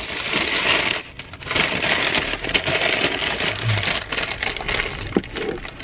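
Brown paper bag and white paper sandwich wrapper crinkling and rustling as they are handled, pausing briefly about a second in.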